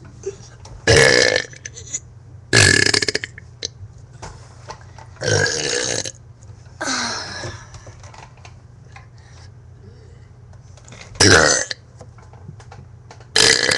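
A person burping on purpose, six loud burps in a row, each under a second long, with short pauses between them.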